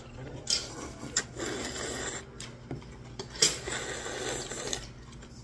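A person slurping long kalguksu noodles from hot broth: a drawn-out sucking rasp with a few sharper sucks, the loudest about three and a half seconds in.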